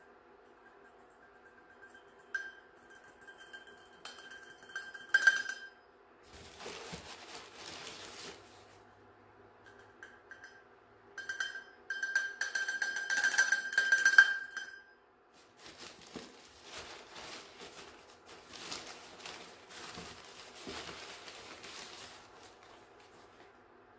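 Small metal shaker of activated charcoal powder being tapped and shaken over a soap mold, its metal ringing with a clear tone twice, briefly at first and then louder for a few seconds. Scratchy rustling and shuffling noise of the handling comes between the rings and after them.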